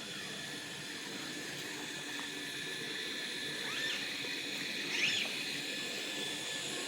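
Steady outdoor background hiss, with two short high chirps about four and five seconds in.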